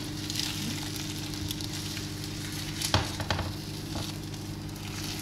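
Sausages and eggs frying in a pan with a steady sizzle over a low hum. A few sharp knocks of a utensil against the pan come about three seconds in.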